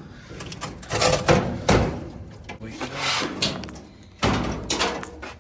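Irregular knocks, clunks and scraping of parts being handled inside a Samsung dryer during motor removal, with a few sharper knocks about a second in, near two seconds, around three seconds and around four and a half seconds.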